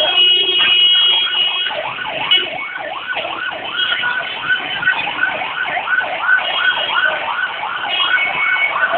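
Car alarm going off: a steady electronic tone, then from about two and a half seconds in fast repeating whooping sweeps about twice a second, switching briefly back to steady tones near the end.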